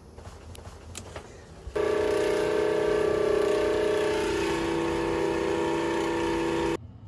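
Boat's 12-volt freshwater pressure pump switched on, starting up about two seconds in and running with a steady hum for about five seconds before cutting off abruptly. The water system is being pressurised to test a repaired hose manifold for leaks.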